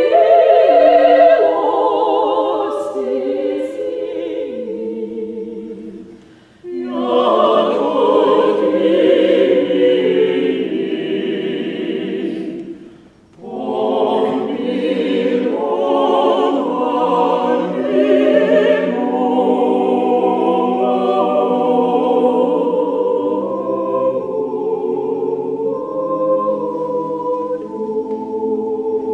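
A choir singing, with sustained, overlapping sung lines. The singing breaks off briefly twice, about six and thirteen seconds in, between phrases.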